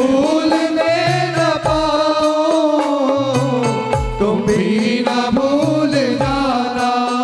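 A Hindi devotional bhajan sung by a group: voices hold long, gliding notes of the refrain over low drum strokes.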